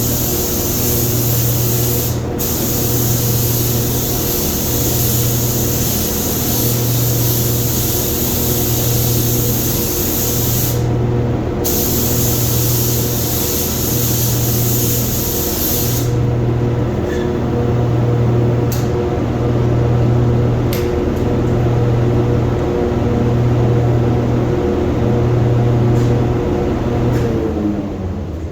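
Automotive paint spray gun hissing as base coat is sprayed onto a car door, with two short breaks in the spray, about two seconds in and about eleven seconds in; the spraying stops about sixteen seconds in. Under it a steady machine hum with a low pulsing drone runs on, and drops away near the end.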